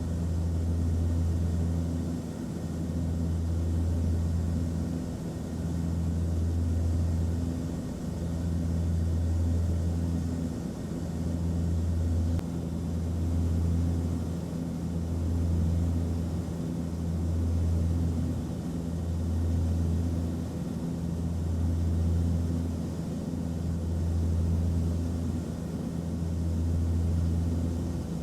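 Airplane cabin noise in flight: a steady low drone with faint hum tones above it, swelling and fading about every two seconds.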